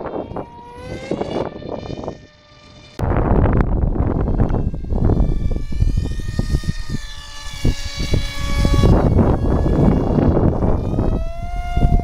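Electric motor and propeller of an RC Powers F18 V2 foam model jet flying in passes, its whine gliding up and down in pitch with throttle and distance. From about three seconds in, heavy wind buffets the microphone underneath it.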